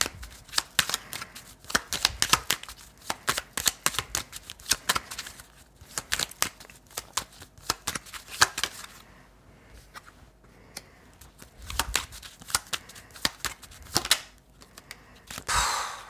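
Oracle cards being shuffled and handled: a quick, irregular run of snaps and taps with short pauses, then a longer swish near the end.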